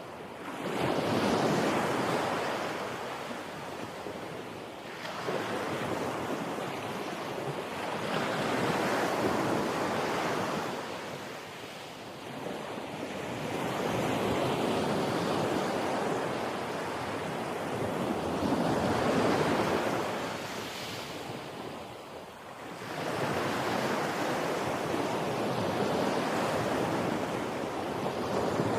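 Ocean waves breaking and washing ashore, a hiss of surf that swells and ebbs about every four to six seconds.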